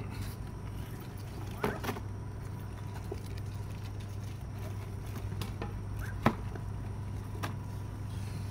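A few light clicks and knocks from monks' alms bowls being handled as food is put in. The sharpest comes about six seconds in, over a steady low hum.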